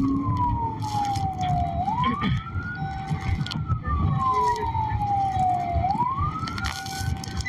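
Police car siren wailing, its pitch sliding slowly down and back up about every four seconds, over a steady low rumble of vehicle noise.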